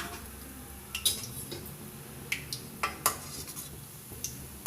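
Metal utensils clinking and tapping against a pan of hot frying oil, about five sharp knocks at uneven intervals, over a steady sizzle.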